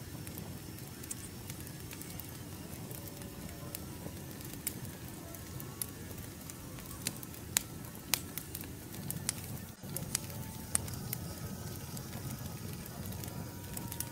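Wood fire crackling: scattered sharp pops and snaps over a steady low rush of burning.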